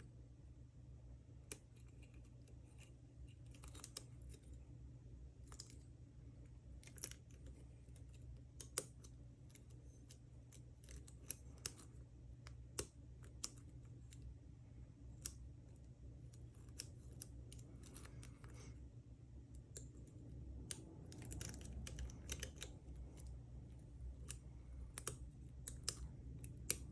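Faint, irregular small clicks and scrapes of a lock pick and tension wrench working the pin cylinder of a Trimax round-body padlock, over a steady low hum.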